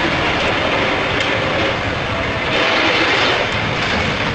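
Box truck's diesel engine running as it rolls off the road onto the rough verge: a loud, steady rumbling noise, briefly louder about two and a half seconds in.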